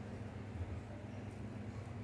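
Faint soft plops of fried gram-flour pakoras being dropped by hand into simmering kadhi, over a low steady hum.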